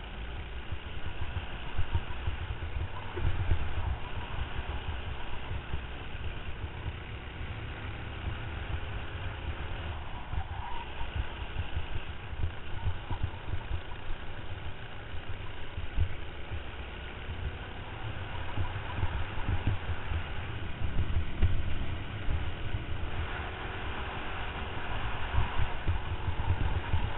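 Racing kart's engine heard from an onboard camera, its note rising and falling faintly under heavy wind buffeting on the microphone.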